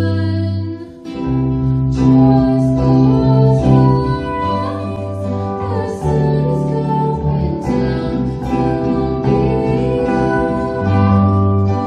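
Live band music: a young female vocalist singing through a microphone over strummed acoustic guitar and electric keyboard.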